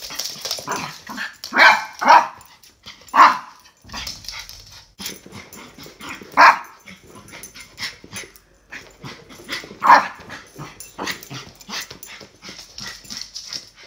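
Small fluffy white dog barking: about five loud, sharp barks at uneven intervals, with quieter yaps and shorter noises between them.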